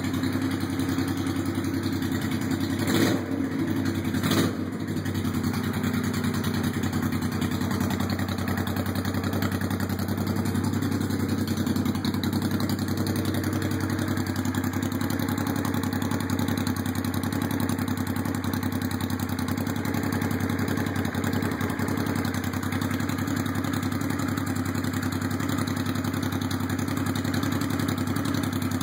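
1984 Honda VT500C's V-twin engine idling steadily, its carburettors freshly re-jetted and the air/fuel mixture screws adjusted. Two short knocks sound over it about three and four and a half seconds in.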